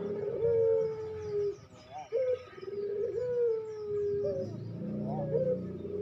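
Ringneck dove (puter) cooing: each call is a short rising note followed by a long, slightly falling held coo. Two long coos come with shorter notes between them.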